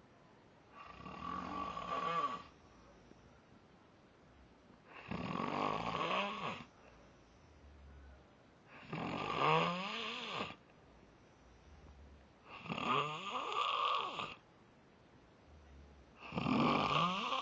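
A man snoring in his sleep: five long rasping snores, each about a second and a half, coming about every four seconds with quiet breaths between.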